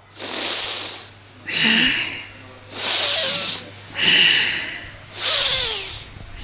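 A man breathing forcefully and rhythmically into a handheld microphone in a paced belly-breathing exercise: five loud, hissing breaths about a second apart.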